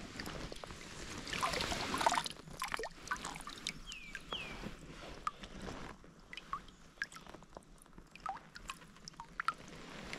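Creek water splashing as a large brown trout is lifted out of the water, then water dripping and trickling off the fish back into the stream in small scattered drops.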